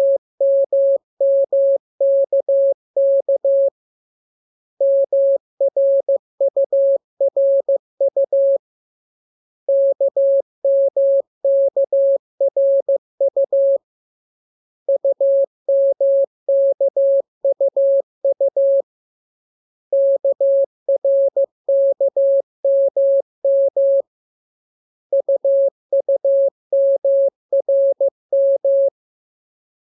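Morse code tone keyed in dots and dashes at an even speed: a steady single mid-pitched beep sending groups of letters, about four seconds each with a one-second pause between. It is receiving practice made up of the letters K, M, U and R.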